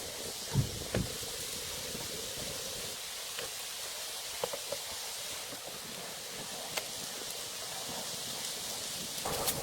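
Steady rain falling as an even hiss, with a few faint taps and knocks scattered through it.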